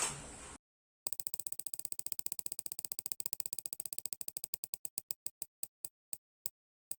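A spinning prize wheel ticking, fast at first, with the clicks slowing steadily until it comes to rest.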